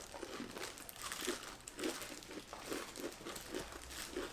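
Several people chewing Paqui One Chip Challenge tortilla chips, which the eaters call very dry: faint, irregular crunching, with crinkling from the plastic gloves holding the chips.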